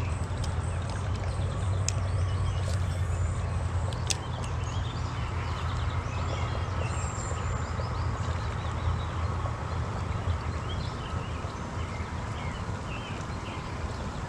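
Steady creek-side noise: flowing water with a low rumble, and scattered faint high chirps and ticks.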